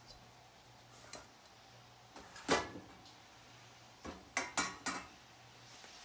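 Utensils knocking and clinking against cookware and dishes: a light knock about a second in, a loud knock about two and a half seconds in, then a quick run of four knocks near the end.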